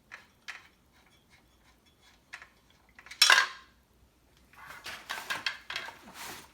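Metal parts of a DeWalt DCS391 circular saw's blade mount being handled as the loosened blade bolt is taken off by hand: light scattered clicks, one loud metallic clank about three seconds in, then a run of rattling clinks near the end.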